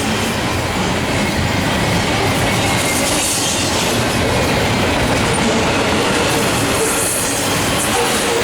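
Freight train cars of a Canadian National intermodal and autorack train rolling past at a steady speed: a continuous rumble of steel wheels on rail, with faint wheel squeal near the end.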